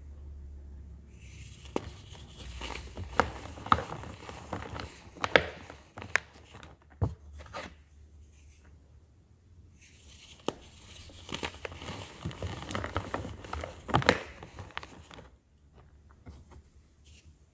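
Pressed baking-soda powder blocks being crushed and crumbled by hand: a crisp, crackling crunch with sharp cracks as pieces break. It comes in two spells, one starting about a second in and one about ten seconds in, with softer powder rustling between and a quieter stretch near the end.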